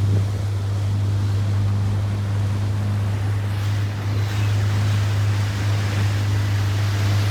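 Motorboat engine running at a steady pitch as a low hum, over the rush of water and wind.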